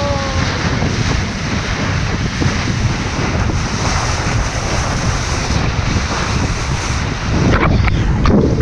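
Strong wind buffeting the microphone over the rush and splash of water along a Lightning sailing dinghy's hull as it sails fast. There is a louder surge of splashing and spray near the end.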